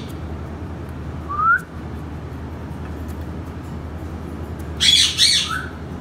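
Indian ringneck parakeet giving a short rising whistle about a second in, then a loud harsh call near the end that closes on a brief rising note.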